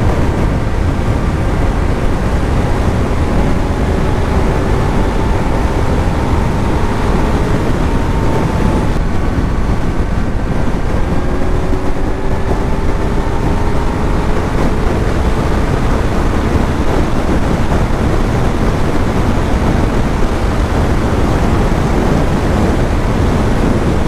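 Wind rushing over a helmet microphone at highway speed on a Kawasaki Z900, with the bike's inline-four engine humming underneath. The engine note rises slowly, breaks off briefly about nine seconds in, and rises slowly again.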